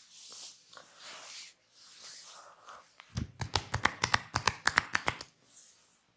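Barber's hands rubbing and brushing over skin, then a quick run of sharp hand slaps, roughly twenty strikes at about nine a second, as percussive massage.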